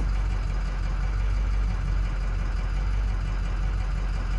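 2007 Ford F-250's 6.0 Power Stroke turbo-diesel V8 idling steadily, with a misfire that the scan tool puts on cylinder 5 and that makes the truck shake; the title puts it down to no compression.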